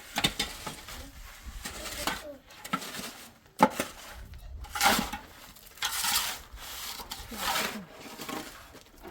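Irregular scraping and rubbing strokes, with one sharp knock about three and a half seconds in.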